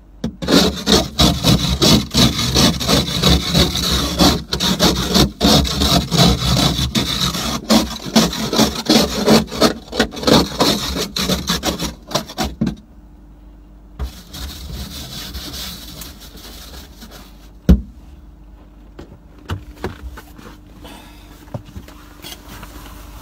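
Snow brush sweeping snow off the car, heard from inside the cabin: rapid, loud scraping strokes for about twelve seconds, then quieter, with a few knocks and one sharp knock.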